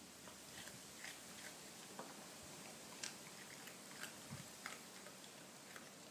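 A Labrador gnawing a raw carrot: faint, irregular crunches and clicks of teeth biting into the carrot, about one a second.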